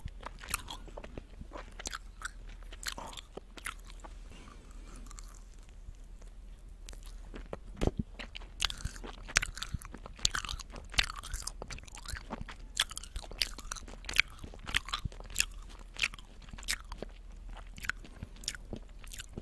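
Sour gummy candies being bitten and chewed close to a microphone: a quick run of small mouth clicks and smacks, thinner for a stretch about four to seven seconds in and then dense.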